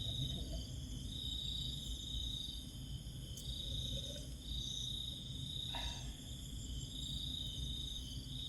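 A chorus of insects trilling steadily at several pitches. The loudest trill comes in stretches of a second or two with short breaks, over a steady low rumble.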